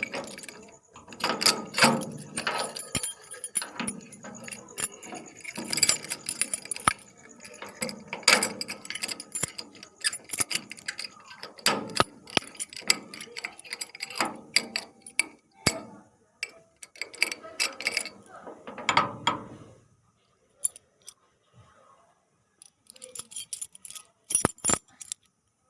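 Keys jangling on a ring and a key worked hurriedly in a lock, with many sharp metallic clicks from the lock. The clicking thins to a few scattered clicks about twenty seconds in.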